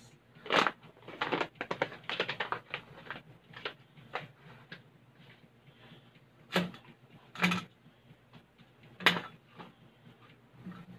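Cleaver chopping spring onions on a plastic cutting board. A fast run of chops comes in the first few seconds, then single chops follow about a second apart.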